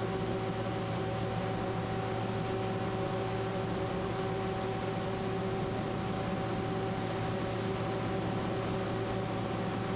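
A steady, unchanging hum with several held tones over a constant hiss.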